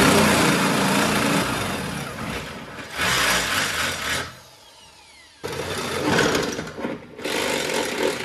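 Electric drill with a half-inch twist bit drilling out holes in the Jeep YJ's steel body tub, enlarging them for nutserts. It runs in four spells with short pauses between.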